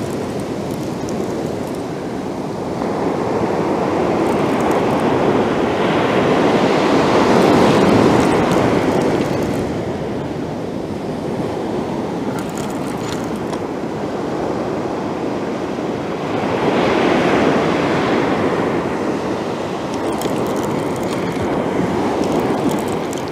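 Sea waves breaking on the beach: a steady rush of surf that swells louder twice, about a quarter of the way in and again past two-thirds of the way through.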